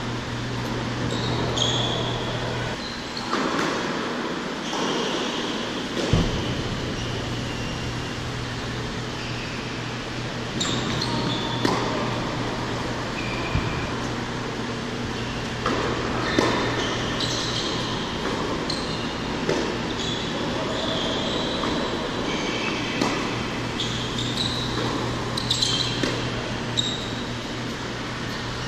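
Tennis rally on an indoor hard court: racquet strikes on the ball and ball bounces as sharp knocks every few seconds, with short high squeaks of tennis shoes on the court. Under it runs the steady low hum of the hall.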